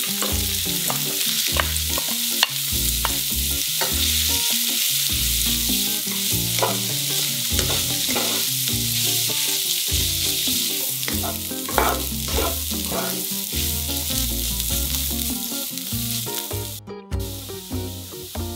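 Diced dried radish sizzling in hot oil in a wok, stirred with a wooden spatula that scrapes and knocks against the pan now and then; the hiss is the radish's soaked-in water frying off. The sizzle cuts out briefly near the end and comes back quieter.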